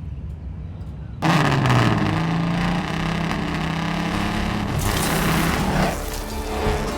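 A car engine running loudly at a steady pitch, cutting in suddenly about a second in and easing off near the end.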